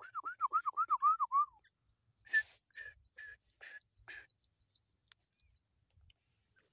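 Grey francolin calling: a fast run of about ten short, repeated, down-curving notes in the first second and a half, then about a second later five louder, harsher notes at about two a second. Faint, thin, high-pitched peeps follow near the middle.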